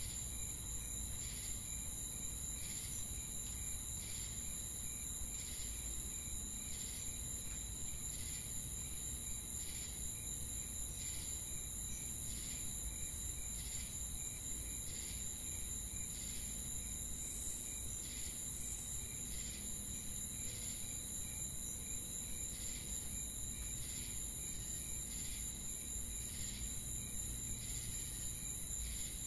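Crickets chirping in a steady ambient chorus: a continuous high-pitched trill with a regular, evenly repeating chirp beneath it.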